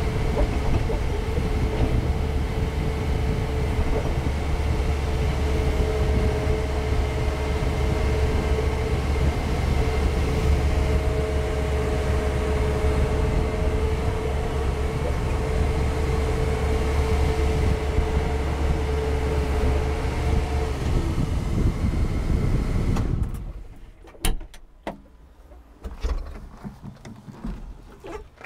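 A John Deere 4720 compact tractor's four-cylinder turbocharged diesel runs steadily as the tractor drives across the lot, with a low rumble and a steady whine over it. About 23 seconds in the sound stops abruptly, and a few sharp clicks and knocks follow.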